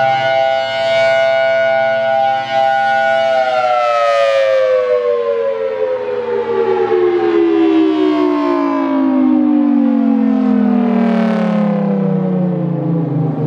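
Federal Signal Thunderbolt 1000T outdoor warning siren sounding a steady, loud tone, then about three seconds in beginning to wind down, its pitch falling steadily for the rest of the time.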